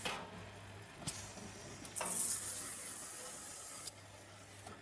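Automatic carton sealer taping a box, its drive motor humming steadily under a short clatter and a click. About two seconds in, a loud hiss of packing tape being pulled off the roll begins, then cuts off suddenly near the end as the tape is cut.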